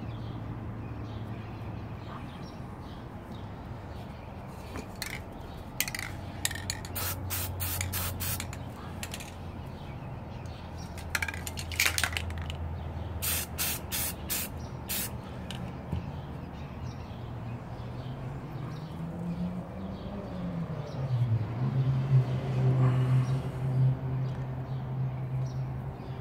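Short hissing bursts from a Rust-Oleum aerosol spray-paint can, several quick puffs in a row a quarter of the way in and again around the middle. A low steady hum runs underneath, rising in pitch and growing louder in the last third.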